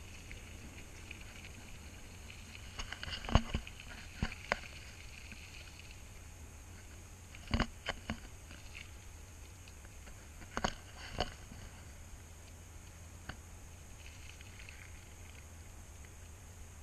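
Sharp clicks and knocks from a bicycle and its mounted camera jolting over bumps in the road, in small clusters a few seconds apart, over a low steady hum.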